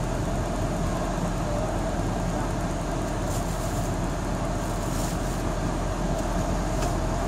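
Steady road traffic noise with a constant low rumble.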